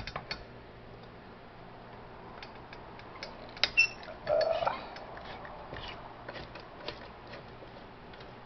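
Scattered light metallic clicks and taps as the burner parts of an old Coleman camp stove are handled and taken apart. A couple of louder clicks come a little before halfway, followed by a brief squeak.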